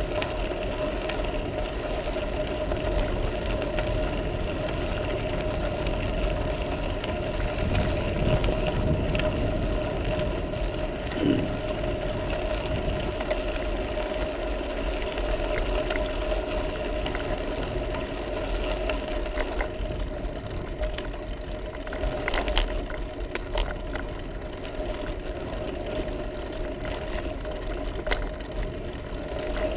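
Bicycle rolling along a sandy gravel track: tyres crunching, the ride rattling, and a steady hum throughout, with a couple of brief knocks from bumps in the path.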